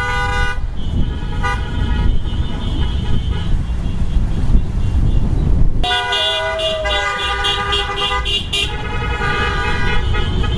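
Car horns honking over and over as cars drive past, some long blasts and a quick run of short toots near the end, over the low rumble of the passing traffic.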